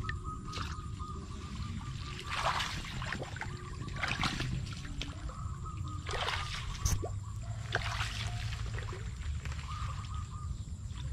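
Shallow water splashing and sloshing in several short bursts a second or two apart, over a steady low rumble.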